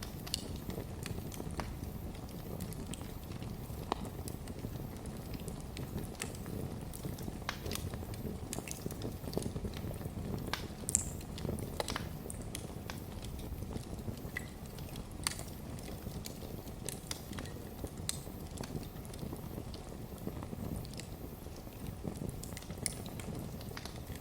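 Wood fire in a fireplace crackling: irregular sharp pops and snaps over a steady low rumble of the flames, with one louder snap about eleven seconds in.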